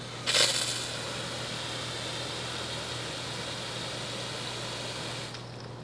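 Water spraying from a Camco Swivel Stik RV tank-rinsing wand fed by a garden hose with no pressure regulator. It starts suddenly with a louder first burst, holds as a steady hiss, and cuts off near the end.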